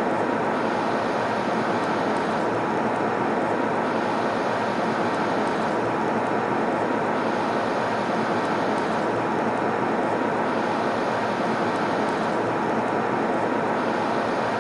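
Steady airplane cabin noise in flight: an even drone and hiss of engines and airflow, with a slight dip in the upper hiss every three seconds or so.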